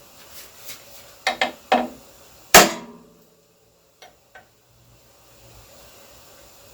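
Hammer driving a punch to knock alignment dents into the flywheel and clutch pressure plate: a few sharp taps, then one hard metallic strike that rings briefly, followed by two faint ticks.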